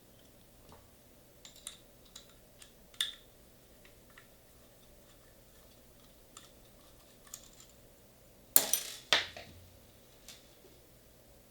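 Small hard parts being handled: scattered light clicks and taps, then two louder clattering knocks about half a second apart near the end.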